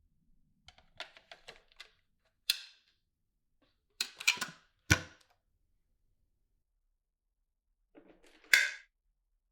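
Plastic parts of a Dyson V15 Detect cordless vacuum being handled, with light ticks and three sharp clicks as parts slide and snap into place.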